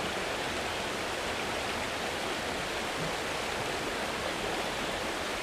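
Creek water rushing over rocks: a steady, even rush of moving water.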